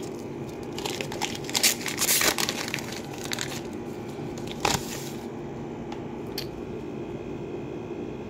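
Plastic wrapper of a 2022 Select football hanger pack crinkling and crackling as it is torn open by hand, in a string of bursts over the first five seconds, followed by a single click and quieter handling.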